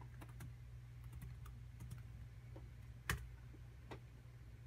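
Typing on a Toshiba laptop keyboard: scattered light key clicks, with one sharper click about three seconds in, over a low steady hum.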